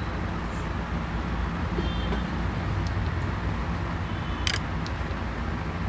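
Steady low background rumble and hiss, with a few faint clicks and a short hiss about four and a half seconds in.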